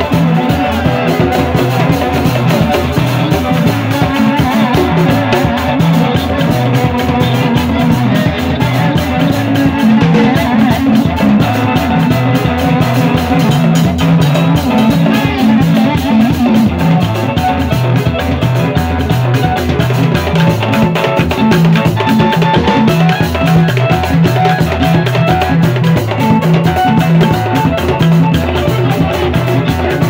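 Live band music driven by hand percussion: a stand of three congas and a drum kit keep a steady, continuous groove, with other amplified instruments coming through loudspeakers.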